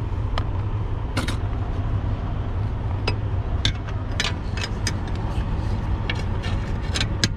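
Steady low rumble of an idling diesel truck engine, under scattered sharp metallic clicks and taps from a wrench working on the seat-mount bolts.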